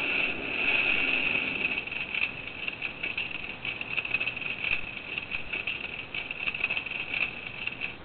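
Old-style telephone bell ringing, played as a sound effect through a hard drive used as a speaker: a continuous, rapidly pulsing ring that starts abruptly and cuts off after about eight seconds.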